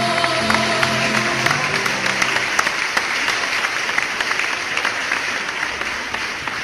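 A small audience applauds as the song ends, with the ensemble's last held notes dying away in the first couple of seconds. The clapping slowly fades toward the end.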